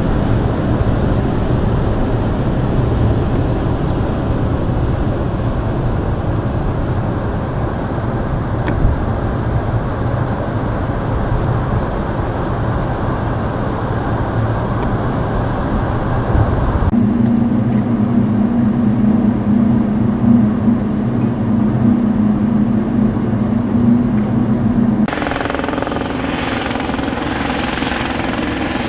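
Helicopter sounds at an airfield in three edited stretches: a steady broad engine and rotor noise with a low hum, then a strong steady tone, and from about 25 s a Eurocopter EC120 in flight, its turbine and rotors running with several steady tones.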